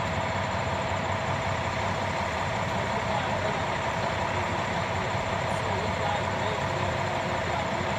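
Ready-mix concrete mixer truck's engine running steadily while it discharges concrete down its chute, a constant even drone with a steady hum on top.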